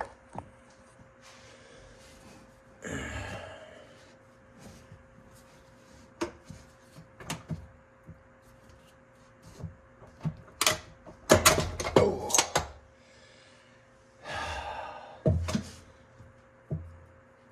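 Hand tools and metal engine parts clinking and knocking as a cylinder is unbolted and worked off a Yamaha WaveRunner 1200 engine, with a run of loud sharp clanks about ten to twelve seconds in. There are short rustling or scraping stretches around three and fourteen seconds in, over a faint steady hum.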